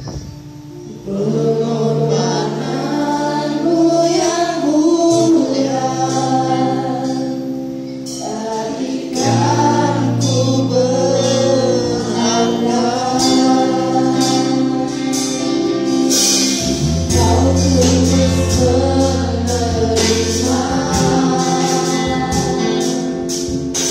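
A worship band and a group of singers performing a Malay gospel song, several voices singing together over sustained instrumental chords. A bass line and a steady beat come in about two-thirds of the way through.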